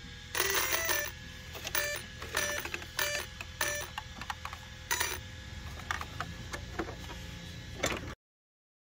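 Brushless electronic speed controller of an ARRMA Fire Team RC truck beeping through its motor after the battery is plugged in through a replacement adapter: a series of short, buzzy beeps over a faint steady tone, which shows that the ESC is now getting power. The sound cuts off suddenly just before the end.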